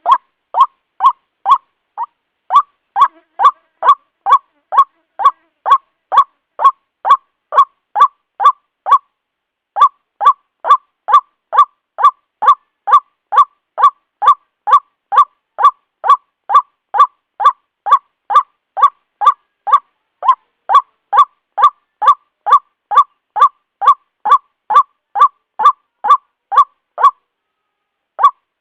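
White-breasted waterhen (ruak-ruak) calling: a steady train of short, sharp notes repeated about two and a half times a second, with a brief break about nine seconds in and another near the end.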